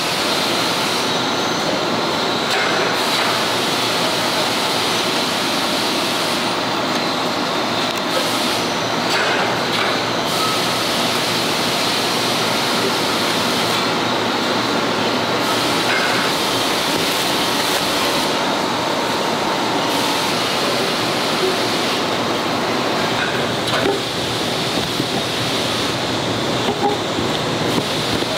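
Steady factory-floor machinery noise: a continuous, even hiss and rumble with a faint high whine and the odd small click.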